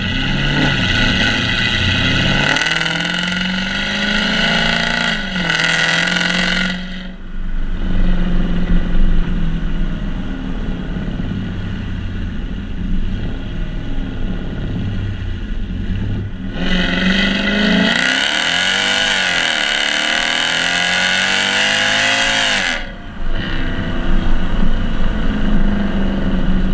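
Mercedes E55 AMG's 5.4-litre V8 exhaust, fitted with C63 AMG mufflers, heard close up at the rear of the car while driving. It pulls hard twice, about two seconds in and again around seventeen seconds in, each time rising in pitch through an upshift and then easing off, with steady cruising in between.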